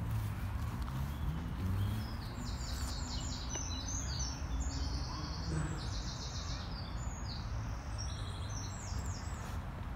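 Songbirds singing in quick runs of short, repeated high chirps from about two seconds in, over a steady low rumble.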